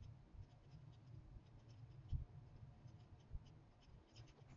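Near silence: faint room tone with a low hum, scattered faint ticks and rustles, and a soft thump about two seconds in.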